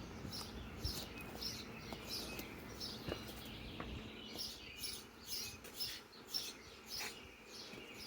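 A small bird chirping over and over, about two short high chirps a second, with a few faint clicks.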